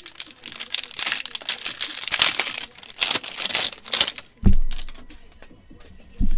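Wrapper of a football trading-card pack crinkling and tearing as it is opened by hand. A dull thump comes about four seconds in, and another near the end.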